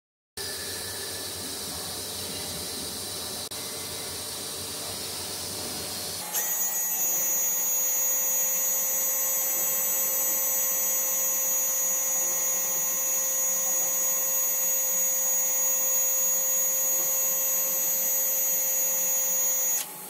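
CNC machine's spindle running, engraving into an anodized aluminium brake caliper with a fine engraving bit. A steady rushing noise gives way about six seconds in to a louder, steady high-pitched whine, which cuts off just before the end.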